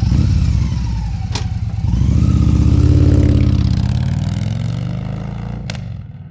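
Motorcycle engine running, growing louder to about three seconds in and then fading away, as if the bike passes by.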